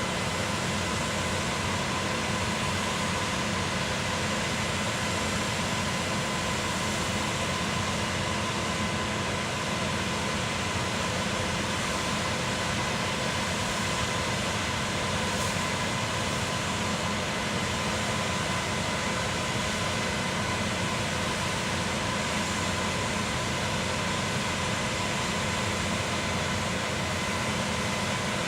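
Concrete pump's engine and machinery running steadily at a constant speed, a continuous noise with a steady hum.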